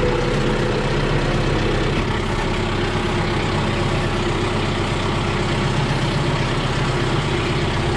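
Kubota loader tractor's diesel engine running steadily, heard from the operator's seat as the tractor drives into a shed.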